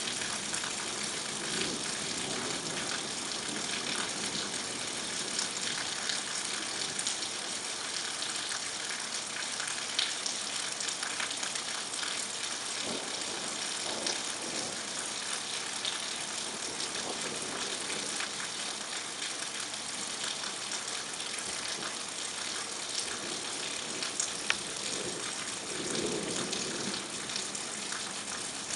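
Steady rain falling, a dense even hiss, with a few sharp taps of drops striking close by.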